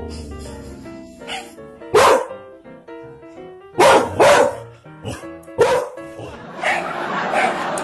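A dog barking, about four loud, sharp barks, two of them close together near the middle, over background music with a melody.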